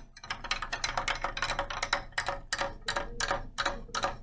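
Glass stirring rod stirring ice cubes in warm water in a foam cup, clinking against the ice in a quick, even run of about five clicks a second.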